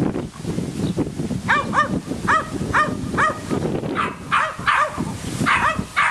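Beagle puppies yipping in a run of about ten short, high-pitched barks, a couple a second, starting about a second and a half in. These are play barks made while the puppies wrestle.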